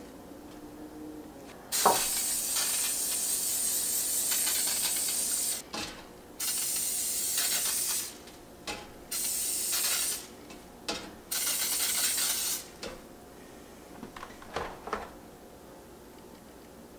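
Aerosol cooking-oil spray hissing in four bursts, the first about four seconds long and the others one to two seconds each, coating rice balls in an air-fryer basket. A few light taps follow the bursts.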